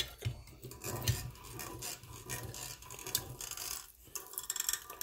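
Irregular small metallic clicks, taps and scraping as a steel workpiece and a press-fit pin are handled and worked in a bench vise. The loudest taps come at the start and about a second in.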